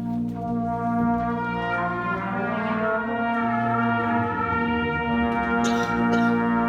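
Middle school band playing held chords, with brass to the fore. Two short noisy strikes come near the end.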